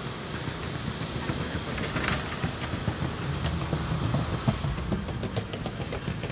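Rumble and clatter on the deck of an iron footbridge as something crosses it: a steady low rumble under many quick knocks and clicks that grow denser about halfway through.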